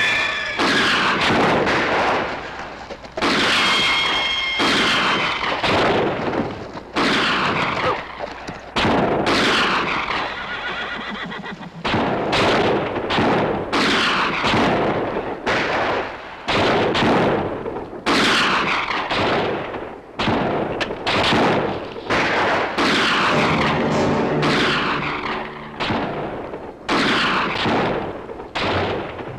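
Gun battle: dozens of rifle shots, one or two a second, each followed by an echo, with a horse whinnying at times.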